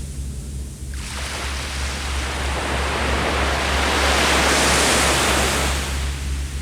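Ocean wave breaking on the shore: a rush of surf starts suddenly about a second in, swells to its loudest around four to five seconds in, and fades near the end, over a steady low rumble.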